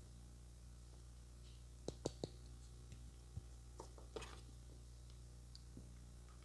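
Near silence over a low steady hum, broken by a few faint clicks and taps: three close together about two seconds in, one more a little after three seconds, and two around four seconds.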